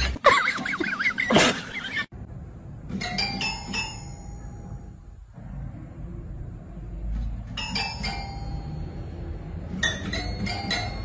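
A cat pawing the keys of a toy piano: a few ringing notes at a time, in three short clusters with pauses between. It opens with a brief loud sound with a wavering pitch that cuts off about two seconds in.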